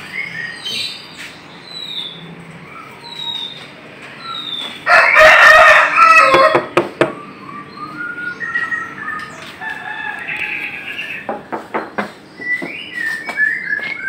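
A rooster crows loudly once, about five seconds in, over repeated short chirps and calls of small birds. A few sharp clicks follow near the end.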